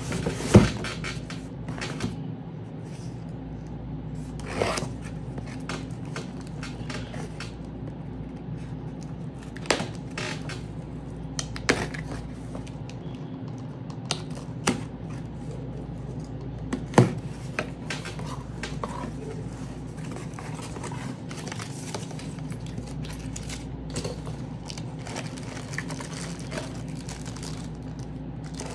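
Scattered clicks and knocks from handling a boxed car speaker and its packaging, the sharpest about half a second in, over a steady low hum.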